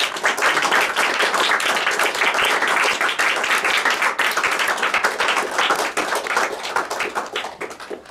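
Audience applauding, many hands clapping at once; the applause thins out and fades near the end.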